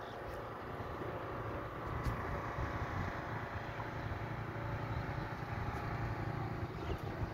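Wind buffeting the microphone in an uneven low rumble, over a steady machine hum with several fixed tones.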